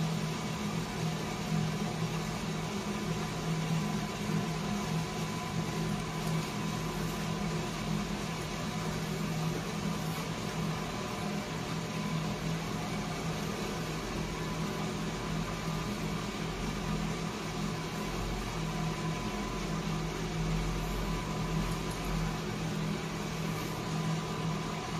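Wake Up electric coffee roaster running with a steady hum from its motor and fan, with a thin high tone held over it, early in a 200 g roast while the beans start to shed chaff.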